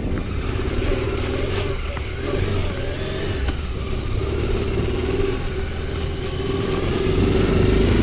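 Adventure motorcycle engine running steadily while riding, its drone wavering slightly in pitch and getting a little louder near the end.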